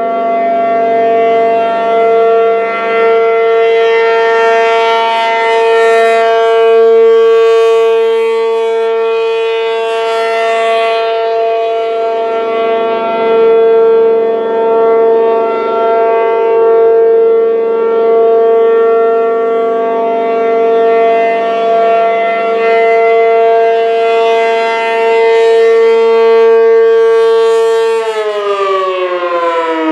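P-50 outdoor warning siren stuck sounding a continuous steady tone, its loudness swelling and fading every couple of seconds. It is running on because of a malfunction assumed to be a welded control relay. Near the end the pitch starts falling as the siren winds down, its power cut at the disconnect.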